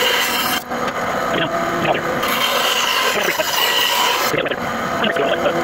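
Rasping and rubbing on wood as the walnut hammer handle is shaped by hand, a continuous scraping that changes with each stroke.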